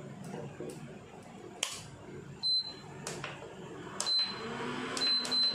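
A slotted spatula knocking and scraping in a nonstick pan of thick spinach gravy, with sharp clicks every second or so. Several short high beeps sound over it, the loudest about halfway and a few more near the end.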